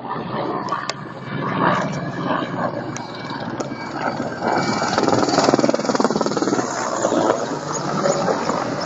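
Attack helicopters flying past, a steady rotor and engine noise that swells to its loudest a little past halfway.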